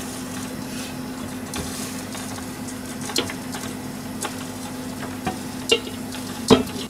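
A steady hum from an induction hob heating a pan of frying oil, with a few sharp metallic clicks from steel kitchen tongs over its second half.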